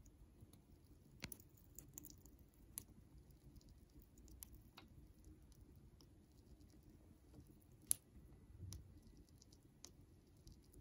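Siberian chipmunk gnawing a pistachio nut in its paws: small, irregular crunchy clicks with gaps between them, one sharper click about eight seconds in.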